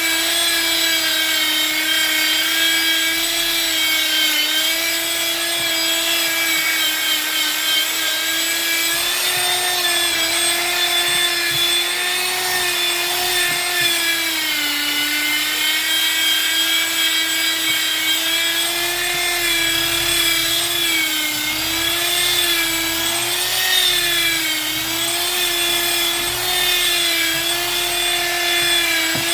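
A Bosch handheld power tool's high-speed electric motor running continuously on wood, a steady high whine whose pitch sags a little now and then as it is loaded, with a rushing noise over it.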